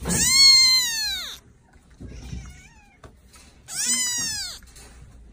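Kitten meowing twice: two long, high cries that each fall in pitch, the second about three and a half seconds after the first.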